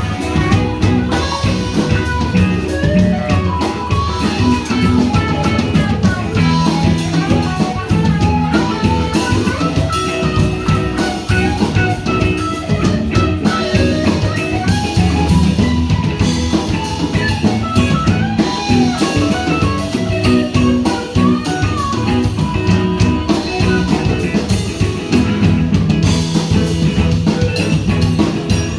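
A band playing with drum kit and guitar: a steady beat under a wandering melodic lead line, with no singing.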